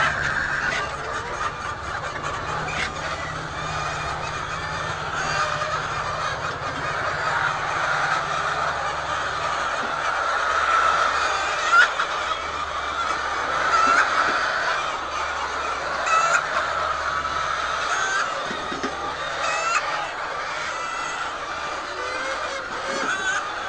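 A large flock of hens calling and clucking all at once, a dense steady chatter with a few louder calls standing out around the middle.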